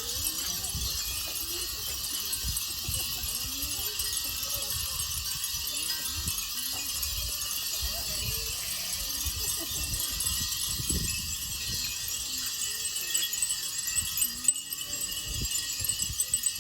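Many hanging furin wind bells tinkling together without pause in a breeze, with wind buffeting the microphone.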